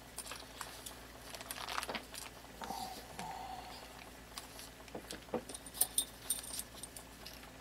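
Light, irregular clinks and rattles of small metal hardware (bolts, washers and spacers) being picked up and handled by gloved hands on a table.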